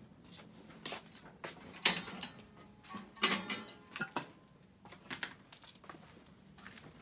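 Footsteps with irregular knocks and clatter, loudest about two and three seconds in, and a brief high squeak in between.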